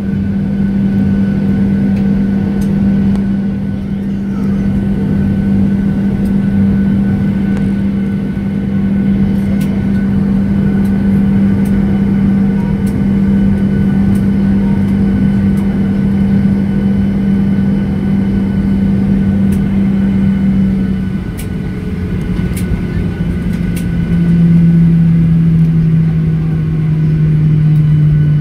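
Jet engines of a Ryanair Boeing 737 heard from inside the cabin while taxiing: a steady drone with a low hum that drops in pitch twice in the last third.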